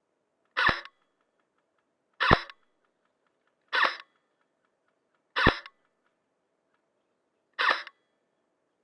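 Airsoft gun firing five single shots at uneven gaps of about one and a half to two seconds. Each shot is a short, sharp crack that dies away quickly.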